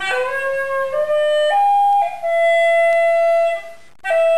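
Hulusi, the Chinese gourd free-reed pipe, playing a short phrase: three notes stepping upward, then a long held note, a brief break, and a new note starting just before the end.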